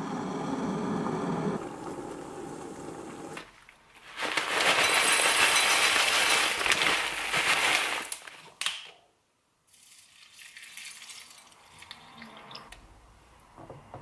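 An electric kettle running for a few seconds. Then dry granola poured from its bag into a ceramic bowl, a loud crackling rattle for about four seconds. Near the end there are a few small knocks and clinks.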